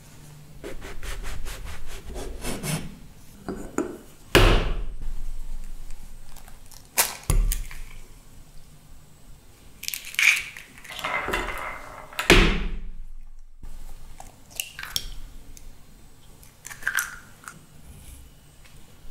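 Kitchen prep sounds: a knife sawing through a slice of bread on a wooden chopping board in quick strokes, then a couple of sharp knocks, and eggs cracked open and their shells pulled apart over a glass bowl.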